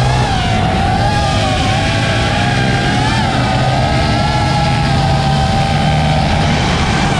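Motors running steadily, with a whine that wavers up and down in pitch.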